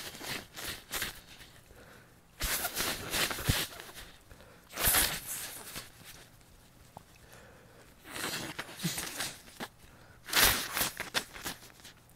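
A person in a sneezing fit set off by a heavy dose of air-freshener spray: about five bouts of sharp, breathy nasal bursts with quieter gaps between them, the loudest about five seconds in and near the end.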